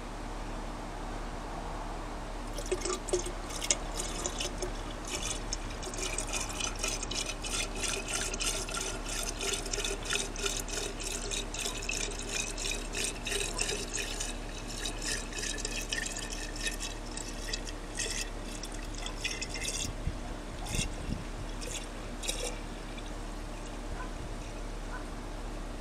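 Green coolant glugging as it is poured from a plastic jug into a Porsche Boxster 986's coolant reservoir, topping up the cooling system after the air has been bled. The pour starts about two and a half seconds in, its pitch slowly rising, and stops a few seconds before the end.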